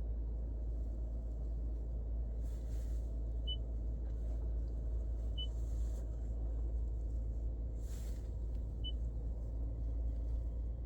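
Toyota Prius Prime's HVAC system running with a steady low rumble and hum, broken by three short high chirps and two brief swishes. This is the buzzing noise that the owner suspects may mean the auxiliary heat pump is going out.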